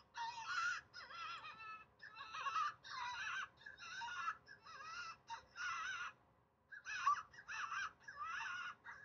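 A bird calling a run of about a dozen harsh, crow-like calls in quick succession, each a fraction of a second long and wavering in pitch.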